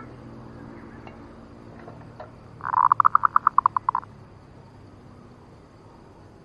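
Zebra dove (perkutut) song: a quick burst of staccato cooing notes, about eight a second for just over a second, midway through. It is a perkutut lure call, used to draw wild zebra doves.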